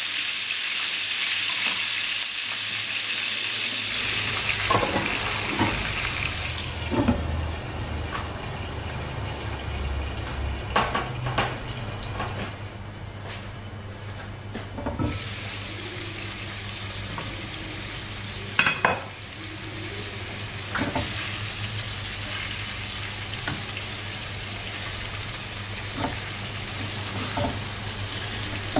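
Pieces of pork belly with garlic and peppercorns sizzling in hot fat in a nonstick frying pan. The sizzle is bright at first, goes duller and quieter for a stretch in the middle while the pan is under its glass lid, then comes back. A few sharp knocks against the pan break in, the loudest a little past halfway.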